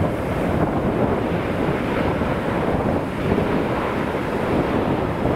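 Steady jet engine noise from a Boeing 787-9 airliner passing low on final approach and flaring to land, mixed with wind buffeting the microphone.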